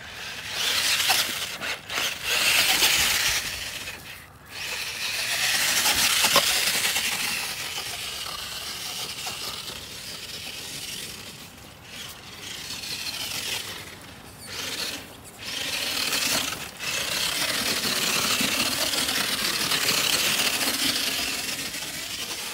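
Traxxas TRX-4 RC crawler's electric motor and gears whining while its tyres crunch and scrape through dry grass and bark mulch, cutting in and out with the throttle in several short gaps.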